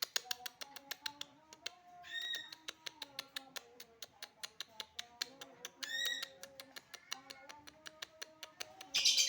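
Quiet background music with a fast, even clicking beat and a low wandering melody; twice a short high chirp, about two seconds in and about six seconds in. A loud harsh chatter starts just before the end.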